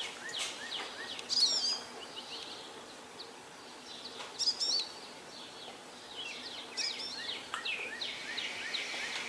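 Birds singing: bursts of quick chirps and warbles about 1.5, 4.5 and 7 seconds in, with fainter calls between, over a low steady background hum.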